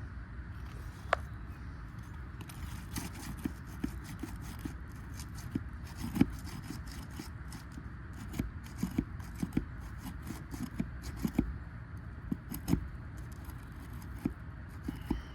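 Steel roof snake working under asphalt shingles, breaking the sealant strips and prying at the nails: irregular short scrapes and clicks over a steady low background noise.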